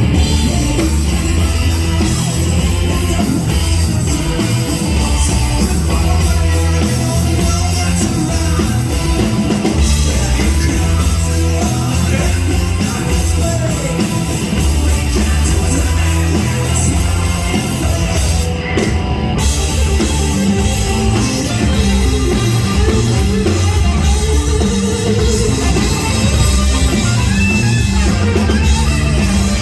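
Live rock band playing loud, with drum kit, electric guitar and a heavy bass line running without a break.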